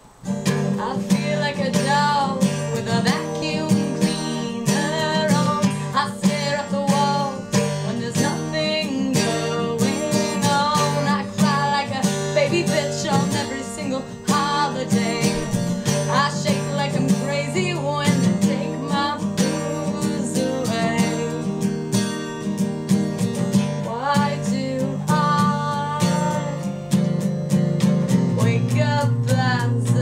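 Acoustic guitar strummed in chords with a capo on the neck, starting suddenly, with a woman singing over it.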